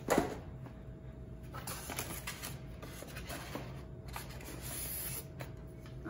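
Packaging being handled in a cardboard box with styrofoam inserts: a sharp knock right at the start, then scattered rustling, clicks and scraping as a part is lifted out of the foam.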